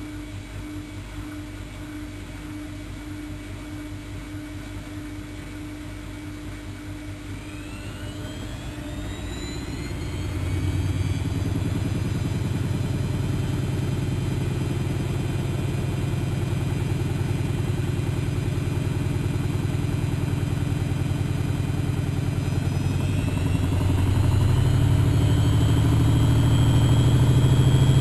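Bauknecht WAK7760 washing machine speeding up into a spin: a low, slowly pulsing drum turn, then a motor whine that rises in pitch from about eight seconds in, the running getting louder in two steps, about ten and about twenty-four seconds in.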